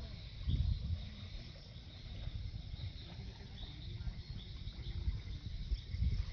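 Insects chirping steadily in short repeated high notes, over a low, uneven rumble on the microphone.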